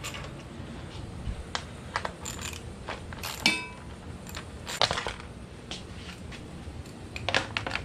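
Scattered light clicks, knocks and metal clinks of hand tools and small bolts as the plastic front panels of a Kawasaki KLX250 dirt bike are taken off, with one sharper ringing metal clink about three and a half seconds in and small bunches of clicks near the middle and near the end.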